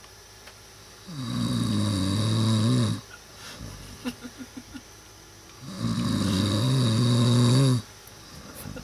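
A person snoring in his sleep: two long, loud snores about four and a half seconds apart, each lasting about two seconds, with faint breathy clicks between them.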